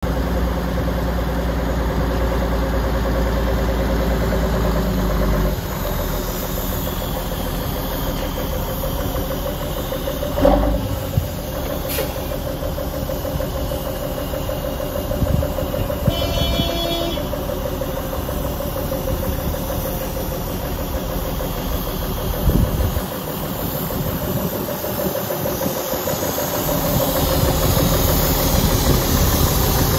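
The diesel engine of a 1992 Volvo FL10 tipper truck idling steadily, with a few short knocks along the way.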